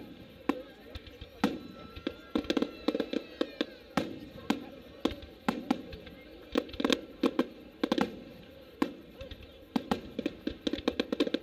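Aerial firework shells bursting: a rapid, irregular string of sharp bangs, coming several a second at the busiest moments.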